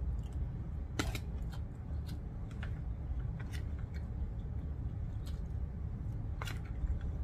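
Eating sounds: a plastic spoon clicking and scraping against an aluminium foil tray of rice while the eater chews, with a few scattered sharp clicks.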